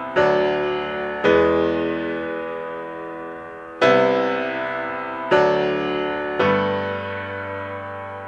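Background music: slow piano chords, five struck in turn and each left to ring out and fade.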